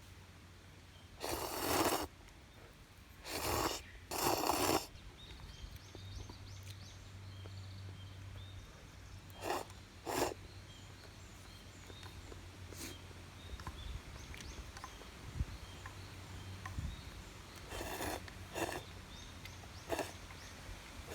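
Several short rushing bursts of noise, each under a second and some in quick pairs, over a steady low hum, with faint high chirps in the background.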